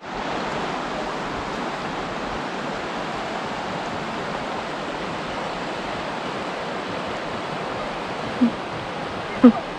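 Steady rushing of flowing water, like a stream or small waterfall. Two brief, louder short sounds come near the end.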